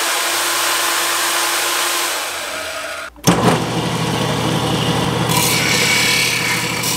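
A portable band saw runs and cuts through a plastic trim piece for about three seconds, then stops abruptly. After a brief gap a Porter-Cable bench grinder runs, and from about two seconds later a higher grinding noise joins in as the cut plastic edge is held to the wheel.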